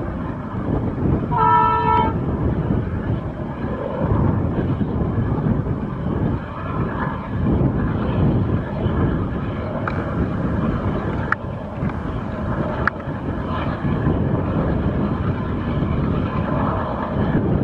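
WDM3A ALCo diesel locomotive hauling a passenger train, its engine running with a steady low rumble. It gives one short horn blast about a second and a half in. Three brief sharp clicks come near the middle.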